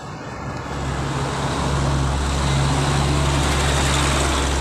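A heavy vehicle passing close by: a steady low engine drone with a rush of tyre and road noise, building from about a second in and then staying loud.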